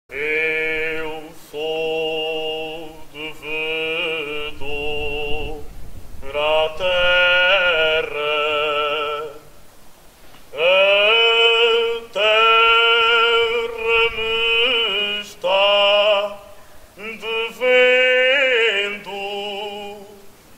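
Background music: a solo singing voice in long held phrases with strong vibrato, over a low sustained accompanying note.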